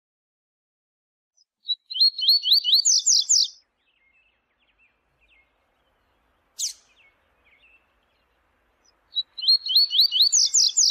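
Double-collared seedeater (coleiro) singing its 'viu-tiu' song: two quick phrases of rapid, rising-pitched notes, one a couple of seconds in and one near the end, with a single sharp call note between them and soft twitters in the gaps.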